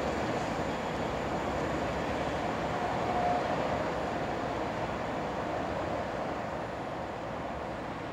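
Diesel-hauled test train rumbling along the track, growing gradually fainter as it runs away. A faint brief tone sounds about three seconds in.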